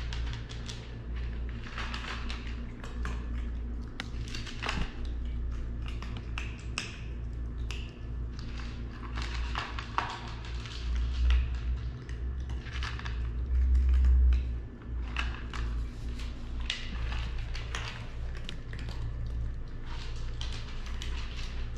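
Cats crunching dry kibble from plastic bowls: a run of irregular small crunches and clicks over a steady low hum, with two louder low rumbles about eleven and fourteen seconds in.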